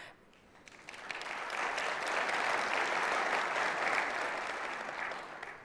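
Audience applauding: clapping swells up about a second in, holds, and dies away near the end.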